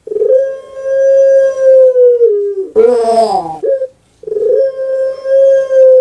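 A puter pelung, a Barbary (ringed turtle) dove, singing its long coo. There are two long, steady, drawn-out notes of about two seconds each, with a short, rough note falling in pitch between them about three seconds in.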